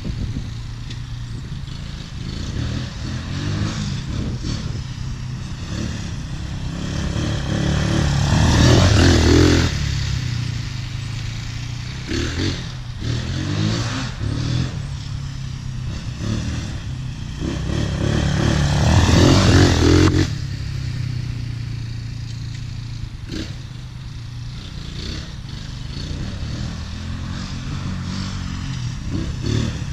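Tornado 250cc Chinese ATV engine running as the quad is ridden around. It swells louder twice, about a third and two thirds of the way in, and each time drops away sharply.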